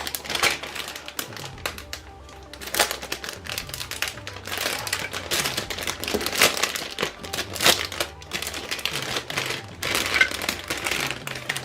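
Packaging crinkling and rustling in irregular bursts as a toy dress-up set is unwrapped, with background music under it.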